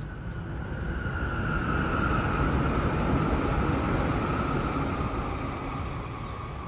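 A passing vehicle: its noise swells over the first two seconds or so, holds, then fades away.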